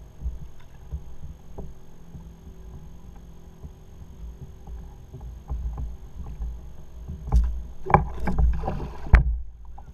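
Water slapping against a plastic fishing kayak's hull with scattered small knocks, then a burst of heavy splashing and thumps from about seven seconds in, ending in one sharp hit, as a large hooked cobia thrashes at the surface beside the kayak.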